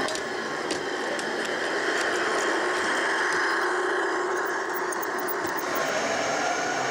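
Gauge 1 model train running on the layout's track: a steady rolling noise with scattered faint clicks.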